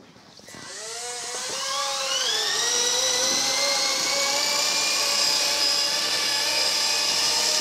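Small Hubsan electric RC helicopter's motors spooling up: a whine rising in pitch over about two seconds, then a steady high whine.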